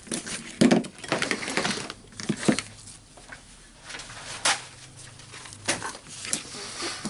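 Workbench handling noise: a power cord is dragged across a wooden bench and small metal tool parts are moved and set down, giving scattered clicks and knocks, the loudest about half a second in.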